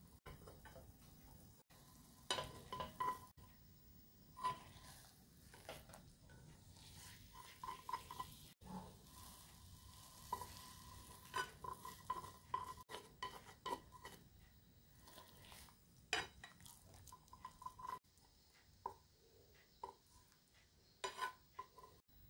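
Wooden chopsticks tapping and scraping against a nonstick frying pan as a soft omelette is pushed and rolled across it, in irregular light knocks, some with a brief ring. A faint sizzle of egg cooking runs underneath.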